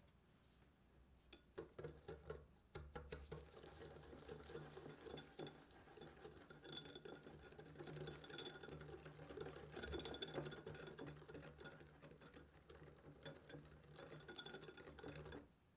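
Wire balloon whisk beating egg yolk and sugar in a glass bowl: rapid, continuous clinking and scraping of the wires against the glass. It starts about a second and a half in and stops abruptly near the end.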